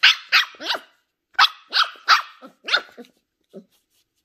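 Ten-week-old Shetland sheepdog puppy barking in high-pitched yaps: three quick barks, a short pause, then about five more, the last few softer.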